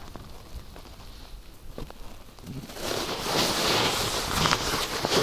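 A few faint clicks, then from about halfway a louder rustling hiss with a few sharp knocks: clothing and handling noise of a person moving at a car's open driver's door.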